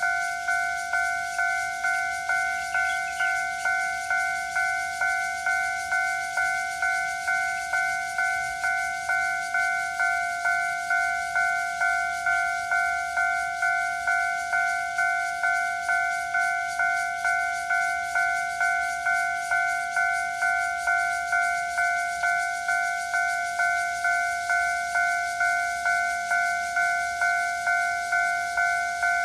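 Level-crossing warning bell ringing continuously: the same bright ding repeats at an even pace, roughly three strikes every two seconds, each fading a little before the next.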